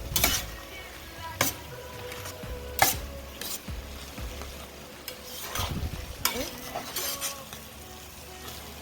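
A utensil stirring a thick creamy chicken and vegetable mixture in a Saladmaster electric skillet, knocking and scraping against the metal pan about once a second, some knocks briefly ringing, over a light sizzle from the pan.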